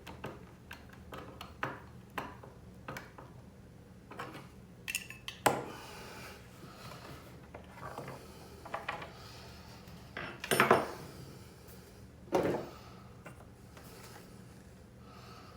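Metal hand tools (wrench and pliers) clicking and clinking against the bolts and nuts of a skateboard truck mount as they are tightened, with three louder clanks along the way.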